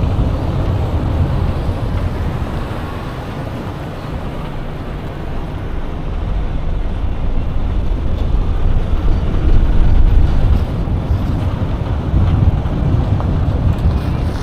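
Wind buffeting the microphone over the noise of road traffic, swelling louder about two-thirds of the way through.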